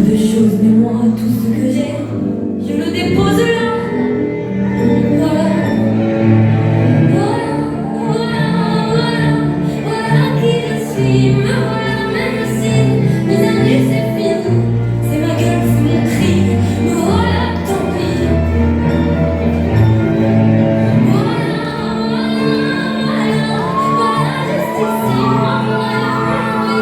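Music: a slow song with a female singing voice over sustained instrumental accompaniment.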